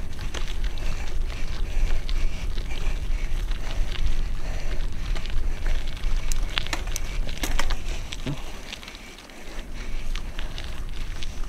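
Mountain bike rolling along a gravel forest track: tyres crunching over the gravel, sharp clicks and rattles from the bike a little past halfway, and wind rumbling on the helmet camera's microphone, which eases off about two-thirds of the way through.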